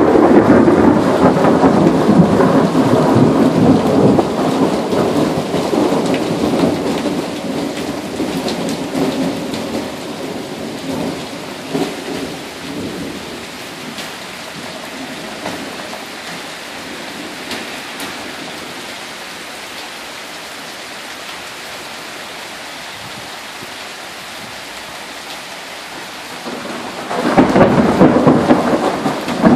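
A long roll of thunder dies away slowly over about ten seconds, leaving the steady hiss of heavy rain. Near the end a second peal of thunder breaks in loudly.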